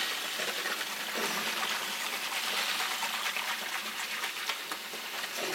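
Kitchen faucet running a steady stream into a sink full of soapy water, with the splash and slosh of hands swishing in the suds.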